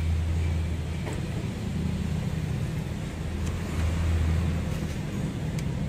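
Steady low hum of an idling engine, with a few faint metal clicks as a screwdriver tightens a worm-drive hose clamp on a rubber turbo hose.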